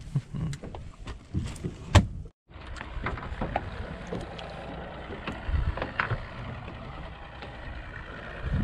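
Ambient noise aboard a small fishing boat at sea: a steady wash of water and wind, with scattered knocks and clicks from the deck. The sound drops out briefly about two and a half seconds in.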